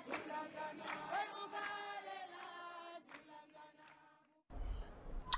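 A group of voices singing together in long held notes, fading out after about three seconds. Near silence follows, then faint room noise with a brief click near the end.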